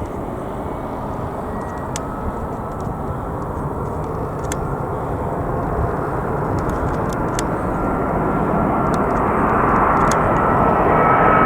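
Engine noise of an aircraft approaching to land, growing steadily louder as it nears, with a faint steady whine coming up near the end.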